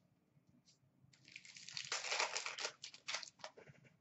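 Papery crinkling and rustling as hands handle hockey trading cards and their packaging. It starts about a second in, is loudest in the middle and dies away just before the end.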